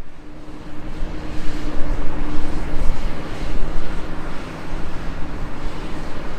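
Heavy diesel construction machinery running steadily: a deep, even engine hum under a rushing noise that swells and eases.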